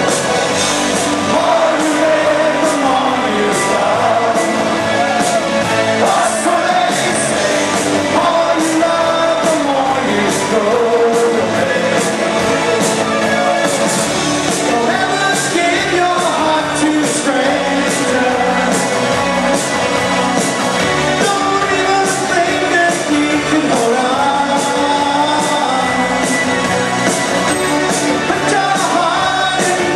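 A pop-rock song with singing over a steady drumbeat, played loud.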